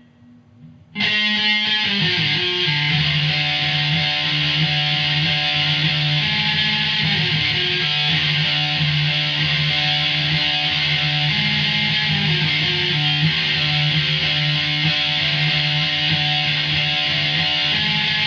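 Electric guitar playing a heavy rock riff. It comes in about a second in and then runs steadily and loud.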